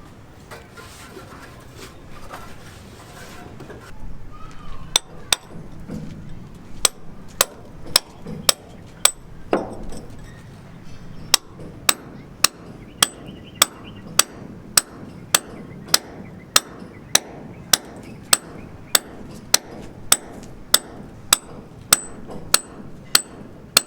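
Hammer blows on a building site, sharp and regular, starting about five seconds in and settling into a steady rhythm of about two strikes a second.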